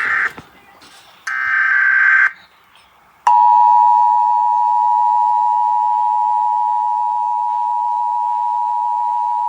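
Two bursts of Emergency Alert System SAME header data tones, about a second each, starting a new alert. About three seconds in, the EAS attention signal begins: a steady two-tone alarm of 853 and 960 Hz played together.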